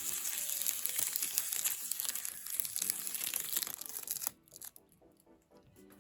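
Protective plastic film being peeled off a new mini fridge, a dense crackling tear that stops abruptly about four seconds in.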